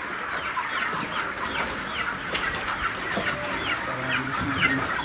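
A large flock of broiler chickens calling all at once: a dense, continuous chorus of short, falling peeps and clucks. A brief low hum joins in near the end.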